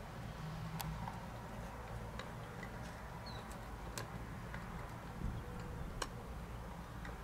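Dog gnawing on a bone: irregular sharp clicks of teeth on bone every second or two, over a low steady background noise.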